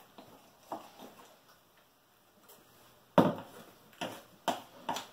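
A hand utensil knocking and scraping against a glass mixing bowl while thick molasses cake batter is stirred: a faint tap early, then a sharp knock about three seconds in and several more about every half second.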